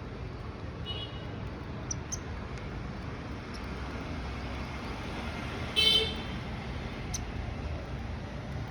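Steady low rumble of distant traffic with a few faint high chirps, and one short, loud horn-like toot about six seconds in.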